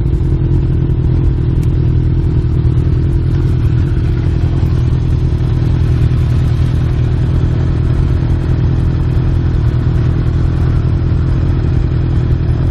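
Honda CB1000R's inline-four engine idling steadily while the motorcycle waits at a stop.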